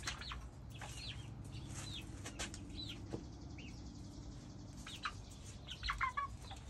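Young hens, about two months old, giving short chirping calls: a few spaced out about a second apart, then a quicker run of calls near the end, over a faint steady low hum.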